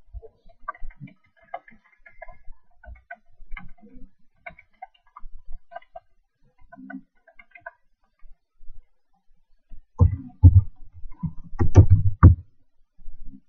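Typing on an ASUS K54 laptop's keyboard, heard through the laptop itself: scattered light key ticks at first, then a run of louder, heavier keystrokes about ten seconds in that lasts a couple of seconds.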